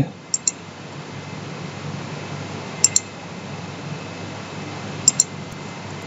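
Computer mouse button clicking three times, each a quick pair of ticks from press and release, over a faint steady hum and hiss.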